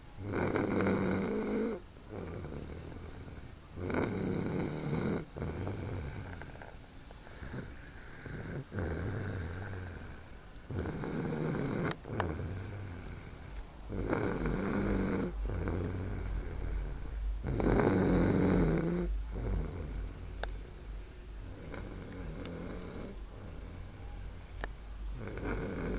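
A man snoring in his sleep: loud snores roughly every three to four seconds, with quieter breathing in between.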